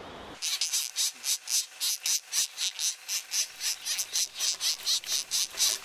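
Black woodpecker nestlings begging: high, rhythmic calls repeated about five times a second, starting abruptly about half a second in.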